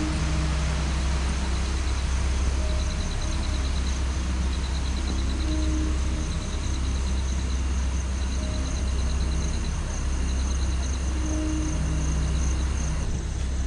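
Night insects chirping: a steady high trill, with short pulsed chirp trains repeating about every second or two. Underneath is a loud, even low rumble.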